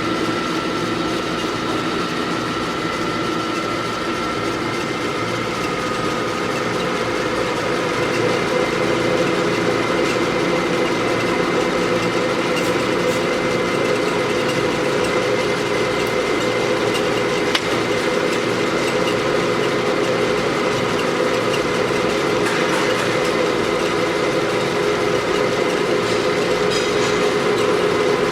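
Cincinnati 24 variable-speed drill press running, a steady machine hum with several whining tones. About six to eight seconds in, a higher whine fades while the lower tones strengthen and the sound grows a little louder.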